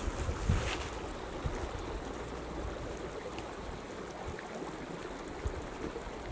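Wind buffeting the microphone: a steady low rumbling rush with stronger gusts in the first second.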